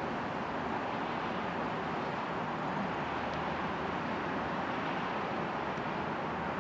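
Steady outdoor background noise: an even, constant rush with no distinct sounds standing out.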